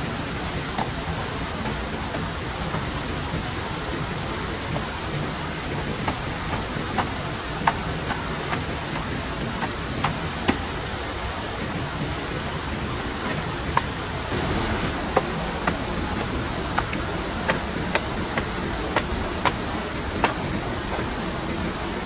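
A steady hiss with irregular sharp taps and knocks scattered through it, roughly one every second or so.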